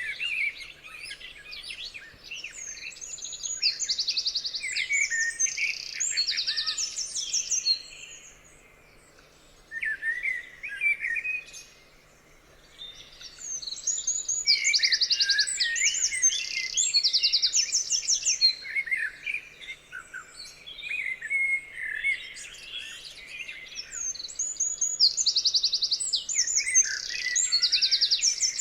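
Several birds singing at once: a busy chorus of chirps, whistles and fast, high trills, dropping into two short lulls about a third of the way through before building again.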